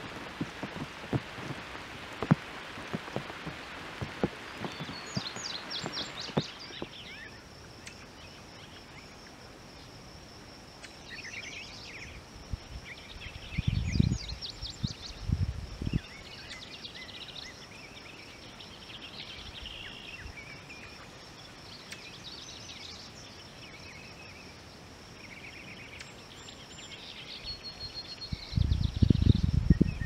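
Several wild songbirds singing short phrases over one another, with a steady thin high tone running underneath from about six seconds in. Wind rumbles and crackles on the microphone at first and returns in gusts around the middle and near the end.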